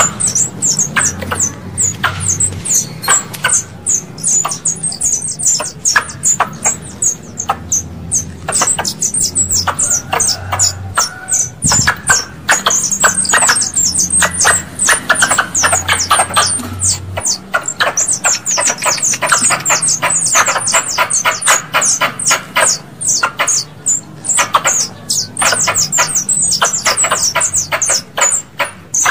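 Squirrel (tupai) calls used as a hunter's lure: long trains of short, sharp, high-pitched chirps repeating several times a second, broken by brief pauses. A faint low hum runs underneath at times.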